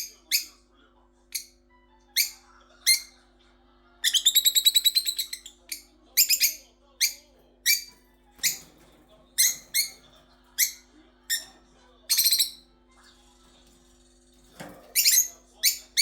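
Caged budgerigars calling with short, sharp, high-pitched chirps, repeated irregularly about once a second. A rapid chattering run of calls comes about four seconds in and a shorter one near twelve seconds, over a faint steady hum.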